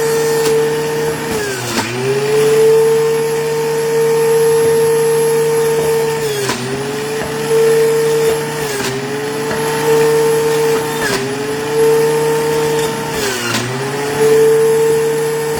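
Electric juicer motor running as it processes chopped green apples. Its steady whine slows briefly about five times, the pitch dipping and then recovering.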